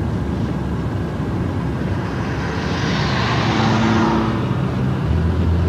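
Car engine and road noise heard from inside the moving car's cabin, with a swell of hiss that rises and falls about three to four seconds in, and a stronger low engine hum near the end.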